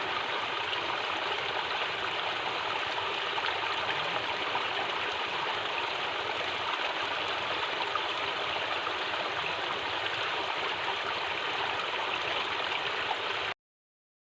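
Water of a hill stream (aruvi) rushing steadily, cutting off suddenly near the end.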